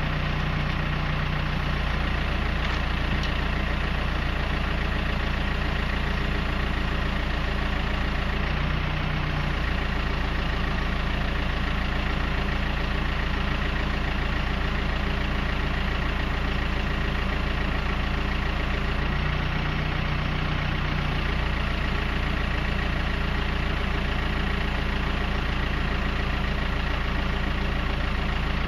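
Telescopic handler's diesel engine idling steadily, its low note shifting briefly twice.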